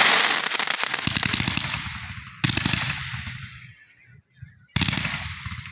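Fireworks display: a loud crackling burst fading away, then a sudden bang about two and a half seconds in and another near five seconds, each followed by crackle and rumble dying down.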